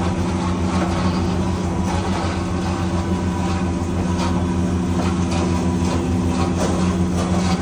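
A steady, loud low mechanical drone with a constant hum, like a running engine or motor, with a few light metallic clinks over it.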